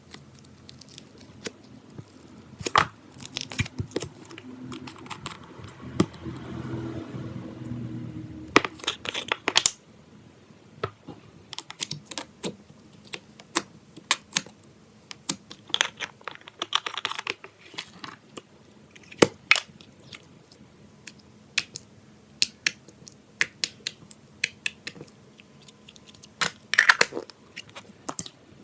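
Slime being squished and poked by hand, making irregular wet clicks and crackling pops, with a denser, lower squelching stretch about five to nine seconds in.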